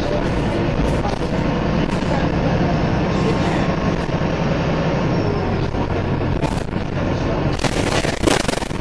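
Wright Pulsar single-deck bus heard from inside the saloon while under way: a steady engine drone with scattered rattles and knocks from the body. The engine note drops about halfway through, and there is a louder, harsh noisy burst lasting about a second near the end.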